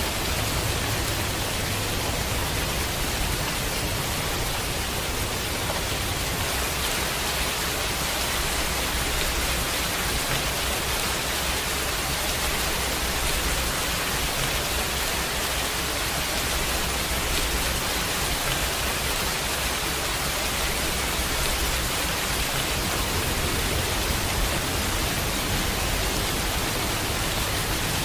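Steady, even rain, a continuous hiss of falling rain with no break or single loud event.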